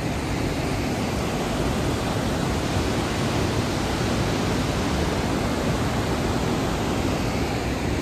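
Waterfall in heavy monsoon flow: a steady, even rushing of falling water.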